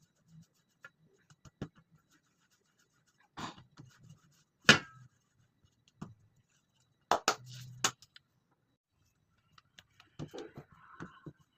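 Scattered knocks and clicks of kitchen handling work, the loudest a single sharp knock about five seconds in, with a quick run of three or four knocks a couple of seconds later.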